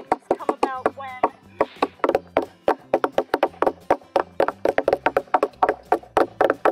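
Rubber mallets and hammers pounding wet, boiled Johnson grass on a wooden plank: many quick, irregular knocks from several people at once, several a second. The grass is being beaten apart into pulp for handmade paper.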